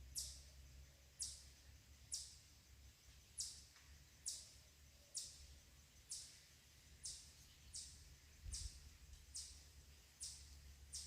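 A bird giving a short, high, falling chirp over and over, about once a second, over a faint low hum.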